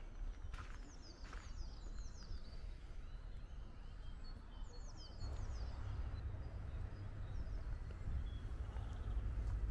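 Outdoor ambience of birds chirping, with quick runs of short falling calls about a second in and again about five seconds in. Under them is a steady low rumble that grows louder about halfway through.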